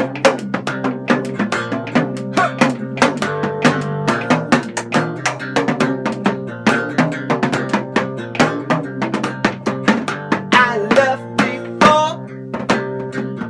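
Instrumental break of a blues-style song: plucked strings played in quick, busy notes over a steady percussion beat.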